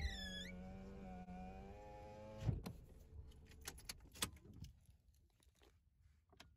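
A car's electric window motor runs with a steady hum for about two and a half seconds after a switch click, then stops with a knock as the glass seats. Scattered clicks and rattles follow.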